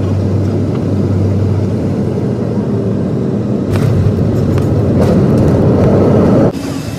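Boeing 737 airliner heard from inside the cabin on the landing roll: a steady, loud jet engine and rolling rumble with a constant low hum. It swells louder over the last few seconds, then cuts off abruptly about six and a half seconds in.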